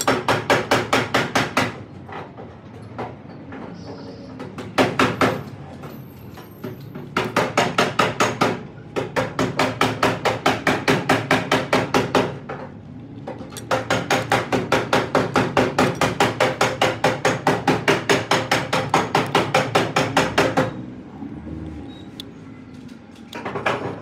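Rapid metallic hammering, about six to seven blows a second with a ringing note between them, in runs of a few seconds broken by short pauses.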